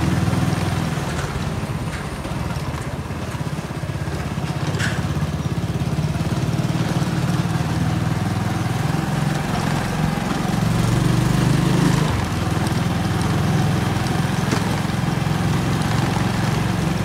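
Small motorcycle engine running as it is ridden at low speed, its pitch rising and falling with the throttle, with a brief drop in pitch about twelve seconds in.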